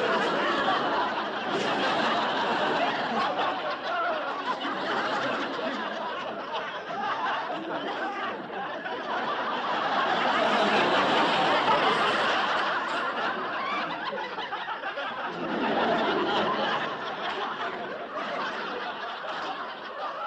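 Laughter from many people, like a sitcom laugh track: continuous snickering and chuckling that swells about halfway through and again a little later.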